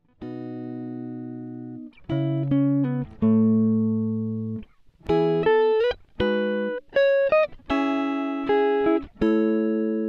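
Background music: a plucked guitar playing a slow tune of single notes and chords, each ringing out and fading.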